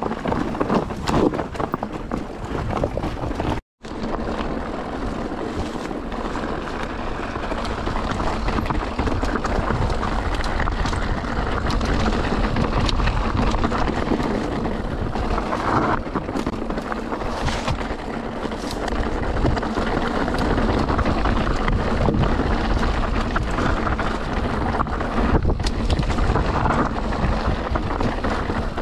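Mountain bike riding down a rough singletrack: wind buffeting the microphone over tyre noise and the rattle and knocks of the bike on rocky ground. The sound cuts out for a moment about four seconds in.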